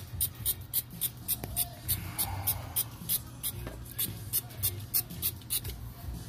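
A run of light, sharp clicks, about three to four a second, stopping near the end, over a low steady hum.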